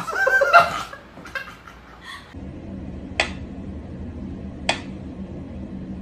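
Mechanical pendulum metronome ticking slowly, one sharp tick about every second and a half, over a steady low hum. Near the start, a brief pitched cry wavers up and down.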